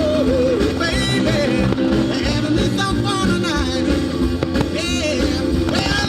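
A pop-rock song with a singing voice over a full band and a steady beat.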